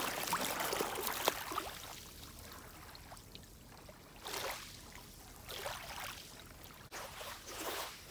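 Small waves washing in and out over wet shingle at the water's edge, in soft surges every second or so, with a few crunching steps on the shingle near the start.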